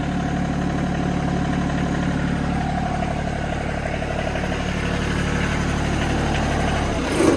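Compact tractor's diesel engine idling steadily, then shut off near the end.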